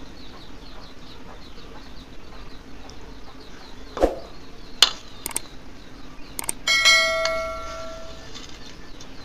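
A metal dish struck by cutlery rings out near the end, fading over about a second and a half. Before it come a few light clinks and clicks of eating.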